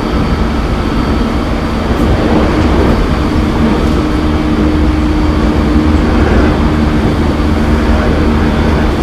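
Interior running sound of a JR 209 series 500 electric train, heard from the motor car: the traction motor hum holds a steady pitch over continuous wheel-on-rail noise, the train cruising at constant speed.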